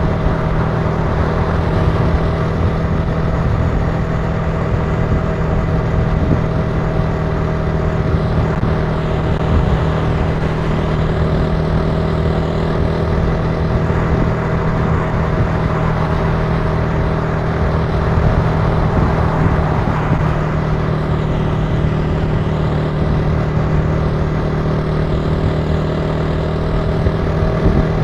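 Italika TC300 motorcycle engine running at a steady speed while riding, its pitch holding even with no revving.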